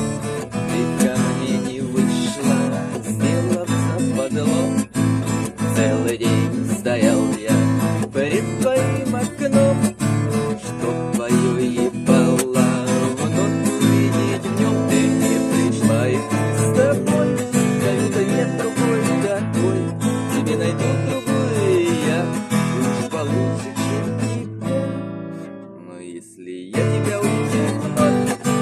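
Acoustic guitar playing an instrumental passage of strummed chords and picked melody lines. Near the end the sound drops away for a moment, then the playing starts again.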